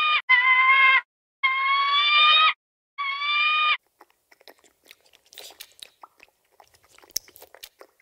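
Hawk giving a run of loud, long screeching calls of even pitch, each about a second, the last ending about halfway. Then faint scattered clicks and smacks of koi sucking at the water's surface.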